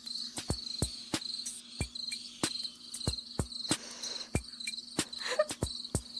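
Crickets chirping in quick repeated pulses, with sharp knocks sounding irregularly about two to three times a second.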